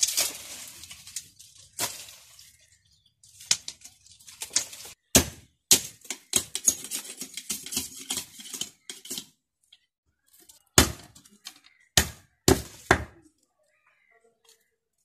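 Handwork with bamboo and palm-leaf strips: dry rustling as the strips are handled, broken by sharp knocks and clinks of a knife striking a bamboo stick set in a brick, a few in quick succession over the last few seconds.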